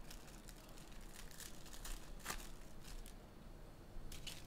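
Trading-card pack wrapper being torn open and crinkled, a faint run of scattered crackles.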